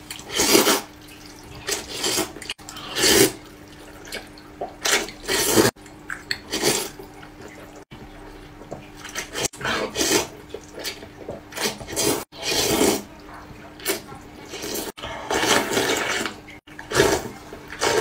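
A person slurping noodles, loud wet sucking slurps repeated a dozen or more times with short pauses between.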